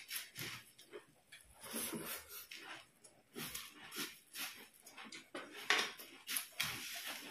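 Close-up eating noises: puffed rice (muri) crunching as it is chewed, and dry puffed rice rustling and crackling as fingers mix it on the plates, in irregular bursts with a sharp click a little before six seconds in.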